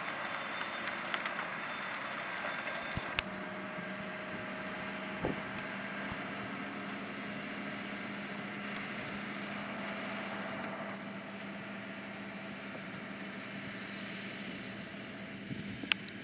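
Farm tractor running steadily, a continuous engine drone with a few sharp clacks, the loudest near the end.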